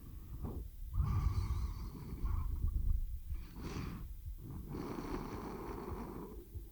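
Domestic cat purring close up, a low pulsing rumble that swells and fades with its breathing: two long purrs with a short pause between them.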